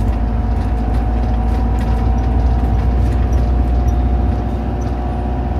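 Camper van on the road: steady engine and road rumble with a thin, steady whine above it.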